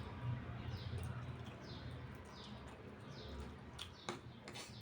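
A bird chirping over and over, one short falling chirp a little under once a second, over a steady low hum. A few faint clicks come near the end.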